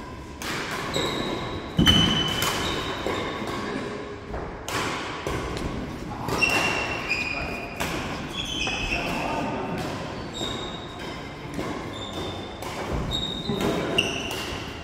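Badminton rally in a large echoing hall: rackets hitting the shuttlecock in sharp cracks, footfalls, and short high squeaks of trainers on the wooden court floor. The loudest event is a thud about two seconds in.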